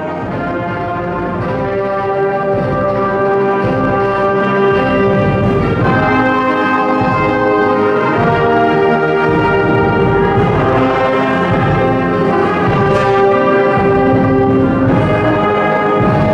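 Concert wind band playing a piece: flutes, clarinets and saxophones with trumpets and tuba, sustained chords under a moving melody, growing a little louder over the first few seconds.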